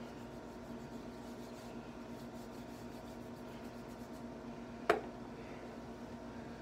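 Quiet rubbing of hands being coated with lifting chalk over a steady low room hum, with one sharp snap about five seconds in.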